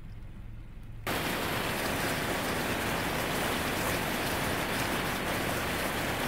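Water rushing steadily through a partly opened sluice gate, churning white below it as the waterway is drained. It starts abruptly about a second in, after a faint low rumble.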